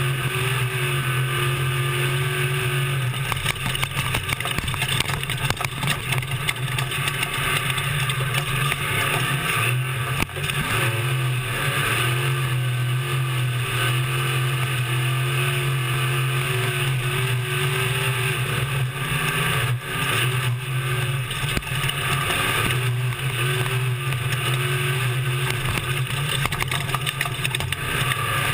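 Race truck engine running hard and steady, heard from inside the cab, with many small knocks and rattles over the rough ground. The engine note dips briefly twice, about ten and twenty seconds in, as the throttle lifts.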